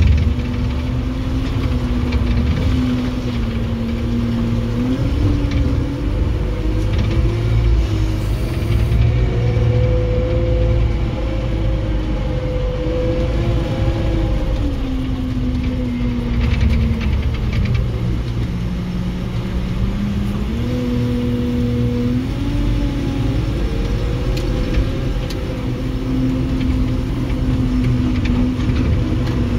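Telehandler's diesel engine running, heard from inside the cab, its revs rising and falling several times as the machine moves.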